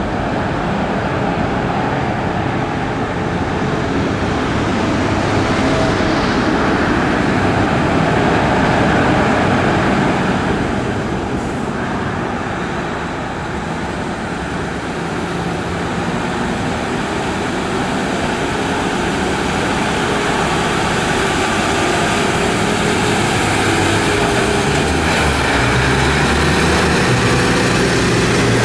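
Mercedes-Benz Actros heavy-haul trucks' diesel engines running under load while pulling the transformer, mixed with heavy rolling and road noise. The sound dips a little about halfway through and then builds again.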